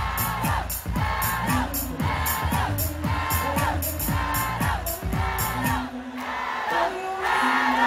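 Pop music over a large outdoor PA during a sound check: a steady dance beat with a repeating vocal phrase. The drums drop out about six seconds in, leaving held notes.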